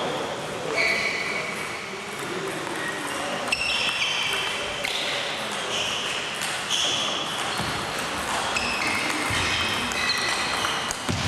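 Table tennis balls clicking on tables and bats in rallies at the surrounding tables, with many short high squeaks and pings and a murmur of voices.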